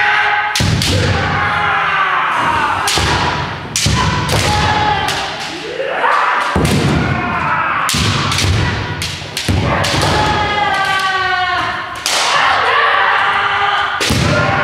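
Kendo sparring: drawn-out kiai shouts from several players overlapping, mixed with sharp cracks of bamboo shinai striking armour and the thumps of stamping feet on a wooden floor.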